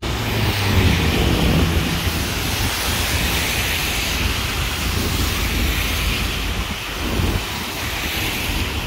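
Wind rumbling and buffeting on the microphone over the steady hiss of a rain-wet street with car traffic.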